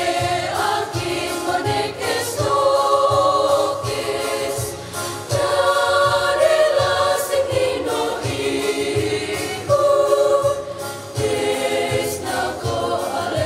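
Children's choir singing a hymn, in phrases of long held notes that break for breath every few seconds.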